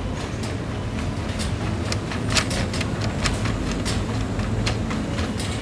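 Wire shopping cart being pushed across a supermarket floor: a steady low rumble from the wheels, with frequent clicks and rattles from the basket, thickest in the middle.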